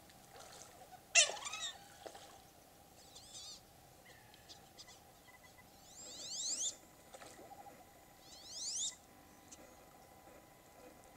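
Wood ducks calling from the water: one loud, sharp squeal that slides downward about a second in, a short wavering call a couple of seconds later, then two quick runs of thin rising whistles around six and eight and a half seconds in.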